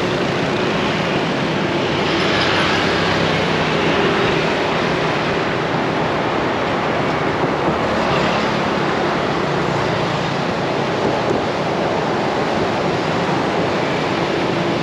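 Steady outdoor noise of road traffic and wind, with surf from the sea underneath, and faint engine hum from passing vehicles.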